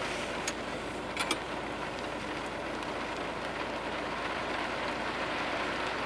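Heavy typhoon rain pattering steadily on a car's roof and windows, heard from inside the cabin, with a few sharp drip taps about half a second and a second in.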